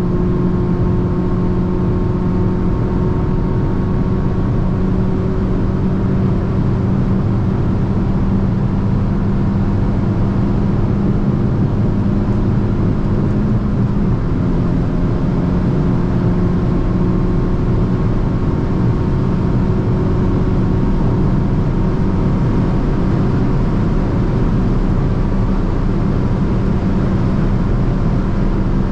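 Hyundai i20 N's turbocharged 1.6-litre four-cylinder running at a steady highway cruise, with tyre and road noise. The engine note dips slightly about halfway through.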